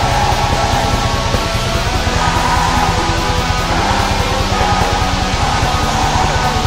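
Black metal recording: distorted electric guitar over rapid, densely packed drumming, at a steady, loud level.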